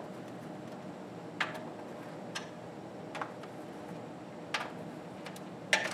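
Sparse light clicks and knocks from a metal breaker box being handled against a plywood wall while its mounting holes are marked, four single ticks spread out, then a quick run of clatters near the end. A steady low room hum lies under it.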